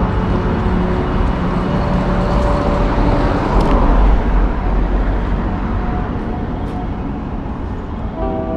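Street traffic noise: cars passing on the road with engine hum and a steady low rumble, loudest about halfway through and then easing off. Background music fades in near the end.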